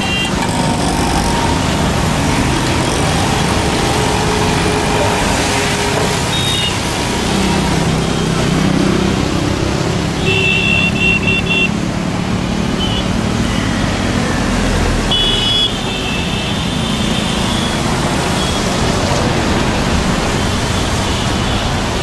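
Road traffic on a wet road: motorcycles, scooters and cars passing in a steady wash of engine and tyre noise. Short high horn beeps sound about ten seconds in and again about five seconds later.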